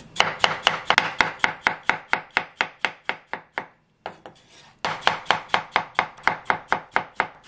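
Kitchen knife chopping a peeled tomato on an end-grain wooden cutting board: quick, even knocks of the blade on the wood, about five a second, with a short pause near the middle.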